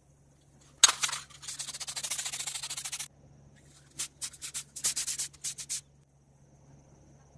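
Aerosol can of red oxide primer being worked and sprayed: a sharp click about a second in, a couple of seconds of continuous fluttering hiss, then a run of short bursts.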